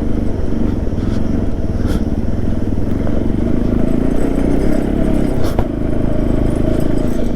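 Motorcycle engine, a Bajaj Pulsar NS200 single-cylinder, running steadily while riding on a rough road. A sharp knock sounds about five and a half seconds in.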